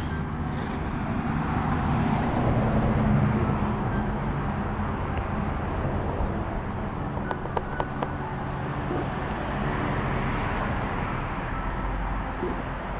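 Road traffic: vehicles passing on the street, one swelling to its loudest about three seconds in and fading, another rising again near the end. A quick run of four or five sharp clicks comes about halfway through.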